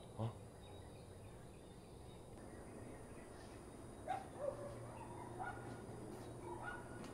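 A dog barking and yipping faintly in short calls, several times from a few seconds in.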